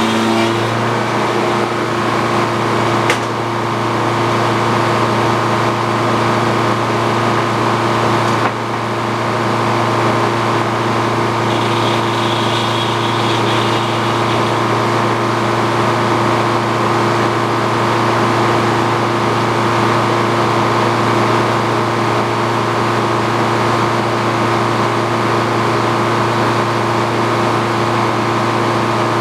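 Old Frick sawmill running steadily, its power unit and saw making a constant mechanical hum with a steady low tone. A single sharp click comes about three seconds in, and the sound shifts slightly at about eight and a half seconds.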